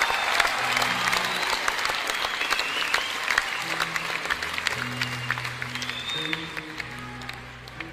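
Applause from a crowd over music with held low notes, the clapping fading away toward the end.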